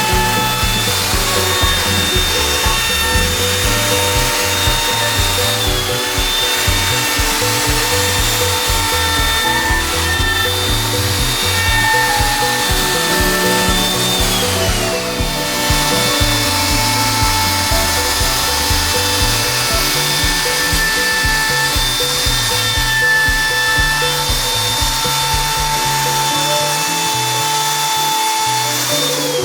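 A power tool running with a steady high whine, which dips briefly about six and fifteen seconds in and drops again near the end, under background music.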